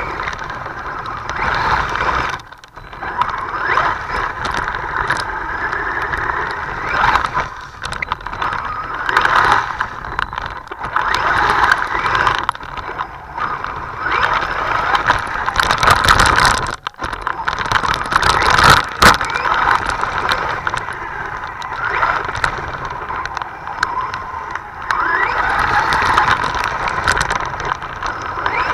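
Radio-controlled Volcano Pro monster truck driving over wet pavement, heard from a camera mounted on the truck: motor and tyre noise mixed with water spray, swelling and fading as it speeds up and slows. The noise drops away briefly twice, and there are a few sharp knocks.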